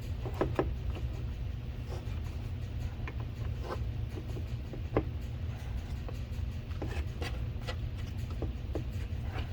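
Scattered small clicks and taps of plastic parts and wiring being handled while a wiring-harness grommet is worked through a hole in a car door, over a steady low hum.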